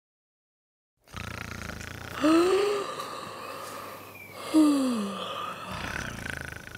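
Exaggerated comic snoring that starts about a second in: a rising snore about two seconds in, then a falling one about four and a half seconds in.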